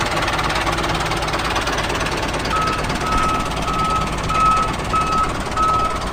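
Small vehicle engine running steadily. A reversing beeper joins about halfway through, sounding a regular string of about seven high beeps.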